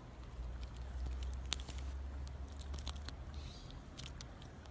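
Close handling noise: a low rumble with scattered sharp clicks and soft squishy rustles, one sharp click about a second and a half in standing out.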